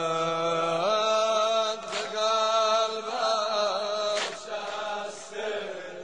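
A male voice chanting a Persian mourning lament (noha), holding long, slowly wavering notes between lines, with three sharp beats.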